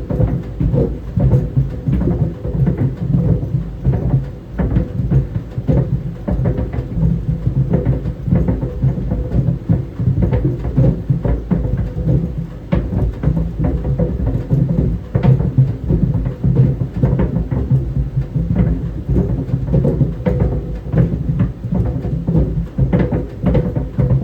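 Tennis balls tumbling in a running clothes dryer, knocking irregularly against the drum several times a second over a low rumble and a faint steady hum.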